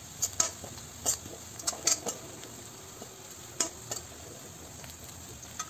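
Chopped onion frying in ghee in an iron kadhai, with a faint steady sizzle, while a metal spatula stirs it, scraping and clicking against the pan every so often.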